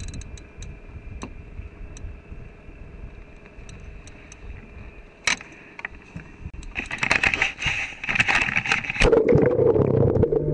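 Faint water lapping with scattered small clicks, then about seven seconds in a loud stretch of splashing and bubbling as the camera goes down through the lake surface. About two seconds later this gives way to a steady, muffled underwater hum.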